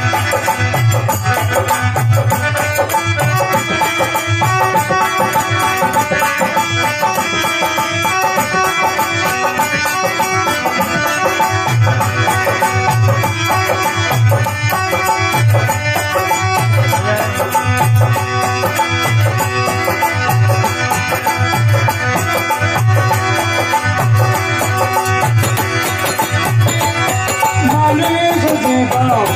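Instrumental stretch of a folk devotional song: a hand drum keeps a steady beat under a melody of held notes. A singing voice comes in near the end.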